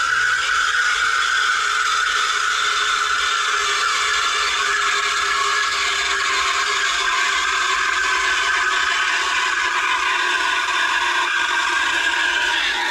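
De'Longhi espresso machine's steam wand frothing milk in a pitcher: a loud, steady hiss and screech whose pitch sinks slowly as it goes.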